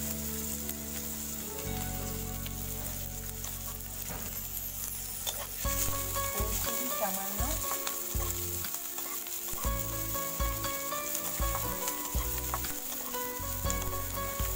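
Chopped onion and garlic sizzling steadily in hot oil in a kadai, stirred and scraped around the pan with a spatula.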